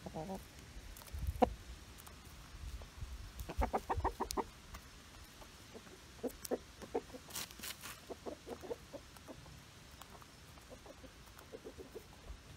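Chickens clucking softly in short, scattered clucks, with a quick run of clucks about three and a half seconds in. A single sharp tap sounds about one and a half seconds in.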